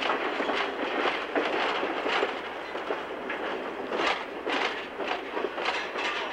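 Railroad car running along the track: a steady rumble, with the wheels clacking over rail joints at uneven intervals.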